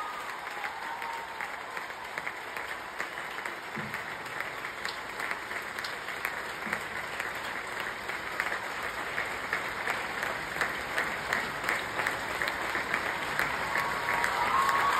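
A large stadium crowd applauding, many hands clapping at once, growing louder near the end.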